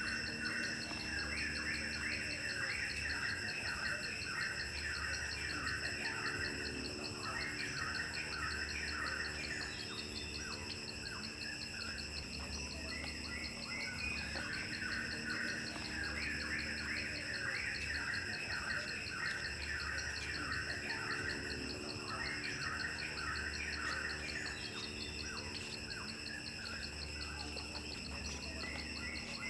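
Insects trilling steadily with birds chirping in repeated bursts of quick calls that come and go every few seconds.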